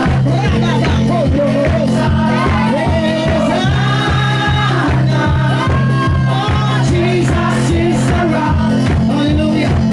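Live worship music with singing over a steady, even drum beat and bass.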